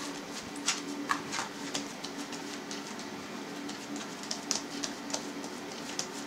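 Hands pressing and smoothing a round of dough on a non-stick-lined baking tray: faint scattered taps and rubbing, over a steady low hum.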